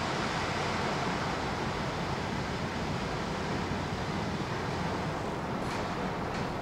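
Steady rushing noise of water in an aquarium tank, with a few faint sharp ticks near the end.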